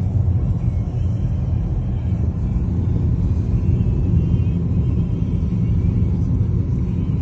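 Steady low rumble of a car travelling at highway speed, heard from inside the cabin: engine, tyre and road noise.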